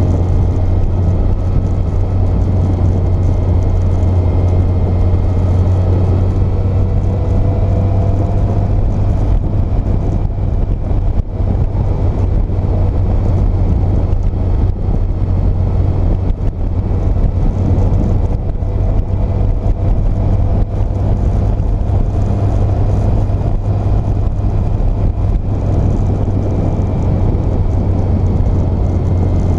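Steady wind rush over the microphone on a moving 2006 Yamaha FJR1300, with the bike's inline-four engine running underneath, its pitch drifting gently up and down.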